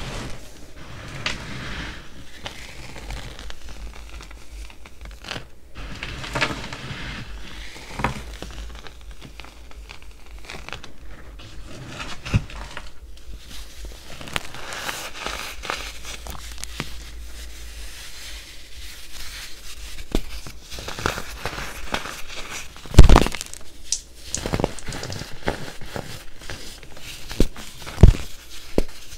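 Hands crushing and crumbling a cup-shaped block of baking soda: gritty crunching and crackling as it breaks apart, with a loud sharp crack a little past two-thirds through and another near the end.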